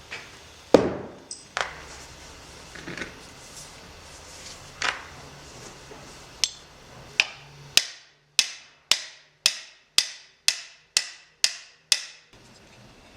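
Hammer blows in a workshop. First a few scattered strikes, the loudest near the start. Then, from about two-thirds of the way in, a steady run of about two strikes a second that stops abruptly near the end.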